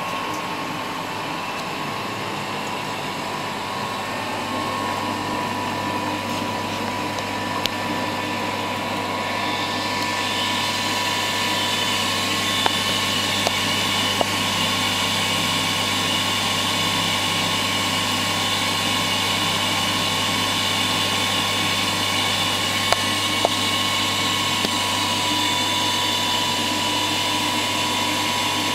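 A small electric motor running steadily with a whirring hum, growing slightly louder over the first several seconds, with a few faint ticks along the way.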